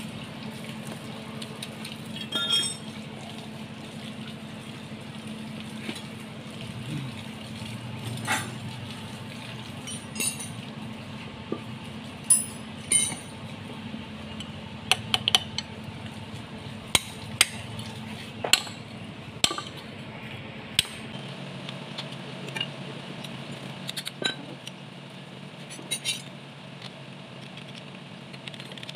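Metal tools clinking and tapping against a bare Kubota tractor diesel engine block, with many short sharp clinks scattered through. A steady low hum runs underneath and drops off about two-thirds of the way through.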